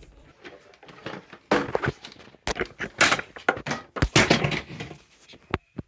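Irregular knocks, thunks and clattering, in several bursts, ending with one sharp click; no alarm beeping is heard.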